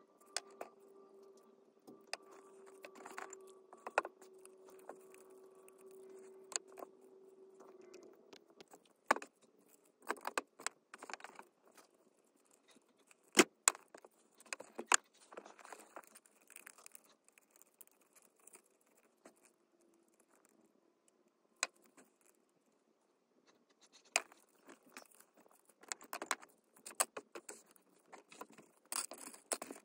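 Small clicks, taps and light metallic rattles of tiny diecast car parts (wheels, thin metal axles, screws and a plastic chassis) being picked up, fiddled with and set down on a work mat, in irregular bursts. A faint steady hum runs underneath and stops about eight seconds in.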